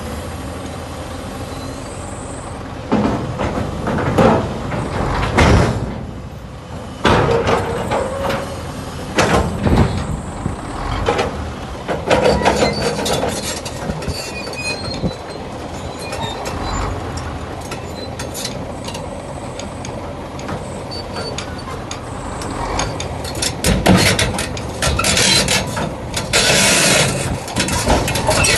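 Tracked excavator's diesel engine running while the machine is driven onto a low-loader trailer, with steel tracks and metal parts clanking, knocking and squealing, the clatter thickest near the end.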